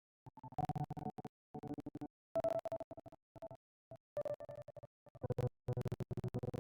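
Background music of sustained pitched tones, chopped into short stretches by frequent abrupt cutouts to silence.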